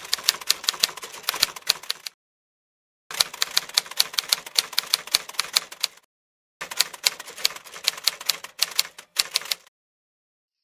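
Typewriter typing sound effect: rapid key clicks in three runs of two to three seconds each, with short silent gaps between them, stopping about a second before the end.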